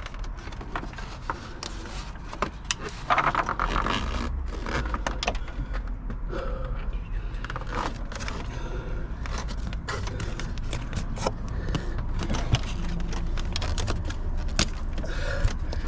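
Irregular clinks, taps and scrapes of tools and metal parts as a serpentine drive belt is worked onto the pulleys of a Mercedes M113 V8 engine with the belt tensioner levered back.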